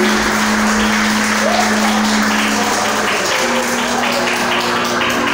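Congregation applauding over live music, an even clatter of clapping with long held notes beneath it that move to a new note about three seconds in.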